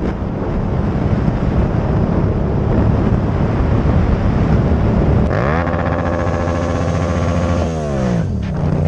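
Motorcycle engine under way with wind rushing over the microphone. About five seconds in the engine revs climb steeply and hold high, then fall away as the throttle closes, and climb again near the end.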